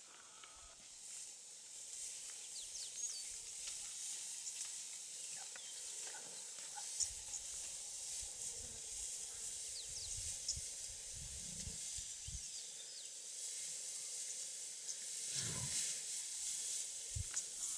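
Bush ambience: a steady high hiss with scattered short bird chirps, and low rustling from African buffalo moving and grazing through dry grass, heaviest in the middle and again near the end.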